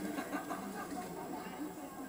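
Distant, indistinct voices of people talking across an open field.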